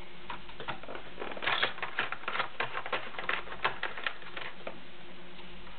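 Quarters clicking together as they are handled and stacked under a sewing machine's raised presser foot: a quick, irregular run of small clicks through the middle few seconds.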